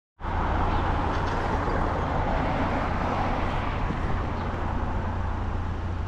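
Steady road traffic noise: an even hiss of passing vehicles over a constant low hum, starting abruptly at the opening.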